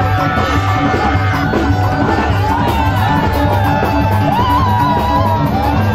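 Loud dance music with a steady bass beat and a wavering melody line.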